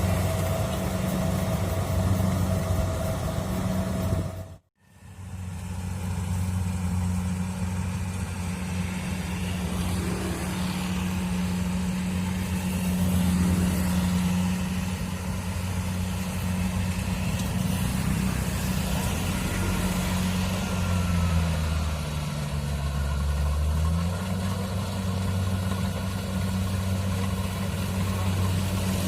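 Kubota DC-70 Plus combine harvester's diesel engine running steadily with a low hum. The sound cuts out abruptly for a moment about five seconds in. A little past twenty seconds the engine note dips in pitch for a couple of seconds, then comes back up.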